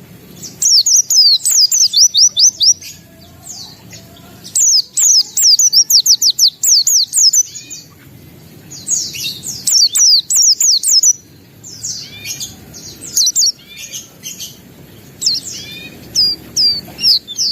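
A white-eye (pleci) singing energetically: rapid strings of high, sweeping chirps and twitters, delivered in about five bursts with short pauses between them.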